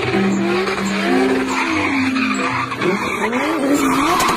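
Drift car sliding sideways on a racetrack, its rear tyres spinning and squealing, with the engine revving up and down over the steady tyre noise.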